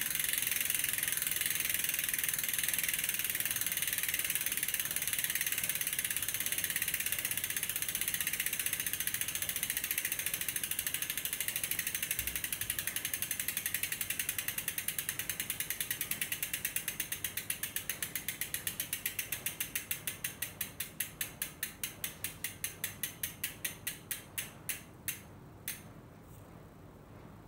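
Vision Metron 55 rear hub freewheeling as the wheel coasts down, after a 500 km run-in: the freehub pawls ratchet in a fast buzz. The clicking slows steadily into separate, ever more widely spaced clicks and stops shortly before the end.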